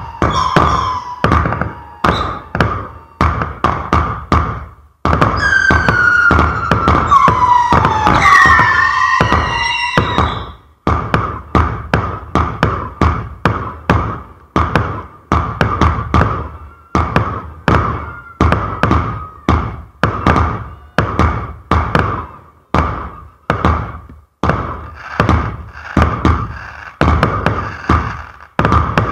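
Consumer firework battery (cake) firing shot after shot, with sharp bangs about once a second, each trailing off. About five seconds in, a run of whistling shots adds falling and rising whistles for some five seconds.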